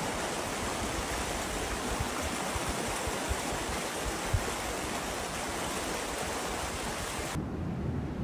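Steady rushing hiss of an advancing lava flow front on snow, with a few dull thumps. Shortly before the end it switches abruptly to a lower, duller rumble.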